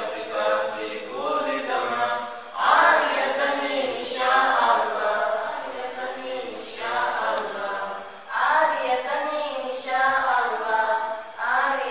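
Unaccompanied group chanting by many voices together. It comes in short repeated phrases, each starting sharply about every one and a half to two seconds.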